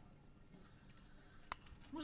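Near silence: quiet room tone, with a single short click about one and a half seconds in.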